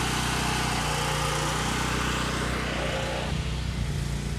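A small engine running steadily, with a crackling hiss of arc welding over it that cuts off about three seconds in.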